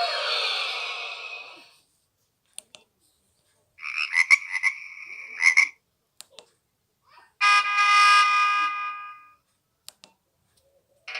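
Nokia 1200 mobile phone playing three short message alert tones one after another, each about two seconds long with a pause between them: a hissy swish, then a buzzy stuttering croak, then a rich steady tone that fades out.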